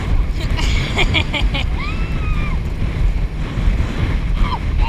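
Wind buffeting the microphone and water rushing and splashing around an inflatable banana boat towed at speed. A brief high shout from a rider comes about two seconds in, and another short call near the end.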